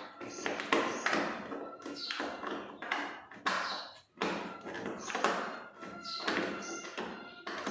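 Irregular taps, clicks and knocks of plastic parts being handled while a Havells RO water purifier is opened and serviced, several strikes a second with short ringing after each.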